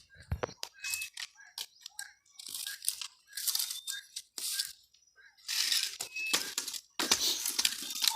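Brush and sticks crunching and rustling as they are handled, in irregular bursts with sharp snaps and short pauses.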